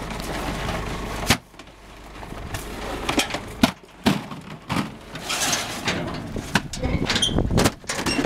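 Full plastic grape buckets knocking and clattering as they are lifted and slid into steel racks on a truck tray. A steady low rumble under the knocks cuts off suddenly about a second in.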